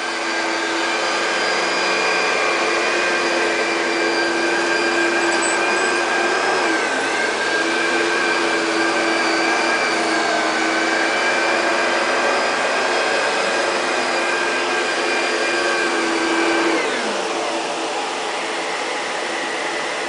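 Vacuum cleaner running steadily, a rush of air with a whine on top. About seven seconds in the whine dips briefly in pitch; near the end it slides down and fades, leaving a slightly quieter rush.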